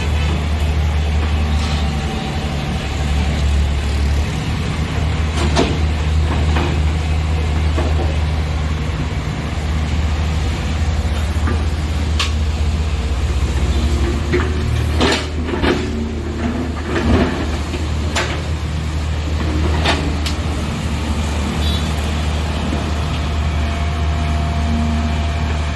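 Heavy diesel engine running steadily at work, with scattered knocks and clanks, thickest a little past the middle, as mud is loaded into a dump truck.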